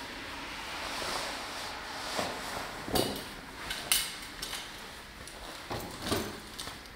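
A few sharp knocks and clatters over a steady hiss. The two loudest come about a second apart in the middle, and another follows near the end.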